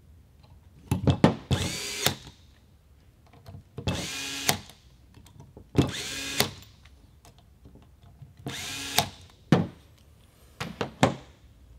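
Cordless electric screwdriver running in four short bursts, each under a second with a rising whine, driving and torquing the screws that hold the trigger guard onto an FX Impact air rifle's metal action. Sharp clicks fall between the bursts.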